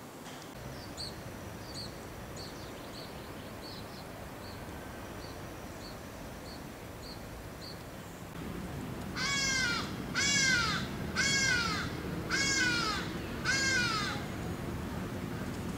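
A crow cawing five times, harsh calls about a second apart.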